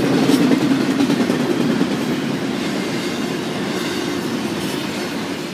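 Double-stack intermodal freight train's well cars rolling past, steel wheels running steadily on the rails and easing off slightly toward the end.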